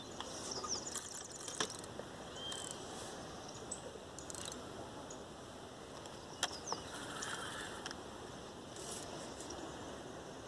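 Quiet outdoor background: a steady faint hiss with a few scattered small clicks and several short, high chirps.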